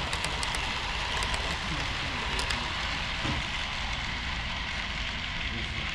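HO scale model train running along the track: a steady rolling hiss with a few sharp clicks in the first half.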